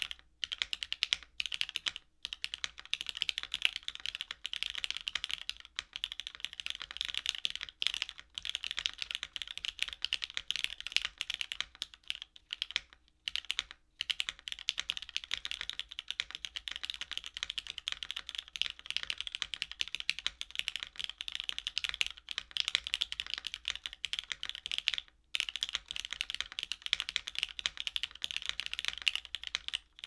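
Steady typing on a Matrix Lab 8XV 2.0 Add tenkeyless mechanical keyboard with lubed, well broken-in Cherry MX Black Hyperglide linear switches, an aluminium top-mount plate and GMK keycaps: a dense stream of keystroke clacks with a few brief pauses, the longest a little under halfway through.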